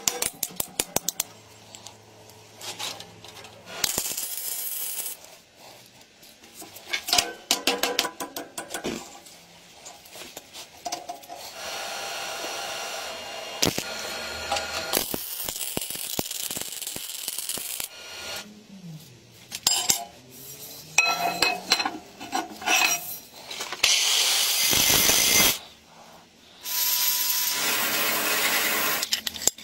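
Metalworking sounds: a quick run of sharp hammer strikes on a small steel plate held in a bench vise, then stretches of steady tool noise broken up by metallic clinks and knocks.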